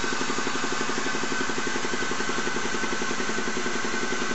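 Hydraulic press pump running with a fast, steady pulsing while it presses a tail bearing into a differential casing.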